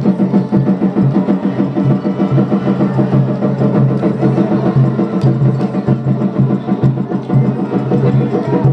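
Festival float hayashi ensemble: taiko drums beating a fast, even rhythm with sharp wooden-sounding strikes, over a steady low hum.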